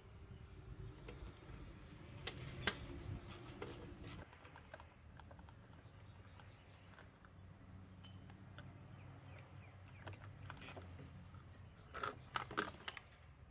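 Light clicks and metallic clinks of hand tools and small parts being handled while working on a lawn mower's carburetor, in a cluster about two to four seconds in and again near the end.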